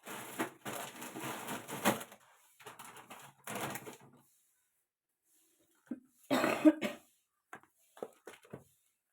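Crinkling and rustling of plastic food packets being handled in the freezer, in two stretches. About six seconds in comes the loudest sound, a short throaty burst like a cough, followed by a few light clicks.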